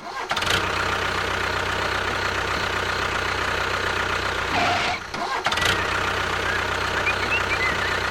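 A vehicle engine starts and runs steadily, dropping out briefly about five seconds in before running again.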